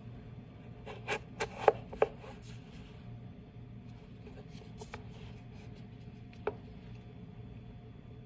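Chef's knife cutting carrot sticks on a plastic cutting board: a quick run of about five chops about a second in, then a few lighter scattered taps and one sharp chop near the end.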